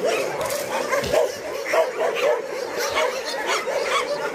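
Many shelter dogs barking and yelping at once, their calls overlapping into an unbroken chorus.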